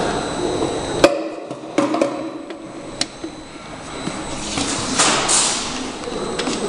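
Automatic double-sided labeling machine running with plastic oil bottles on its conveyor: a steady mechanical hum with a faint high whine, a few sharp clacks about one to three seconds in, and a short rushing hiss about five seconds in.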